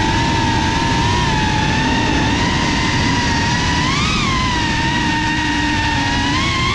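GEPRC Cinelog 35 FPV cinewhoop drone's brushless motors and propellers whining steadily in flight over a rush of prop wash, the pitch rising briefly about four seconds in and wobbling up and down near the end as the throttle changes.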